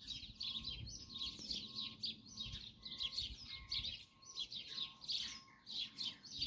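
Small songbirds singing in a rapid, continuous run of high chirps and trills over open pasture, with a low wind rumble on the microphone that dies away about four seconds in.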